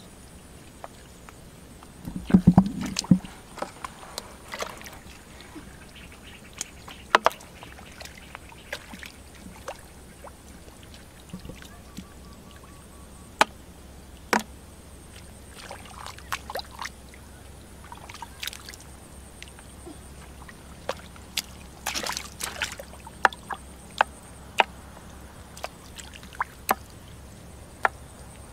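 Hands and bare feet working through wet mud and shallow muddy water: scattered squelches, small splashes and sharp clicks. A heavier slosh comes about two seconds in, and a short run of splashing about twenty-two seconds in.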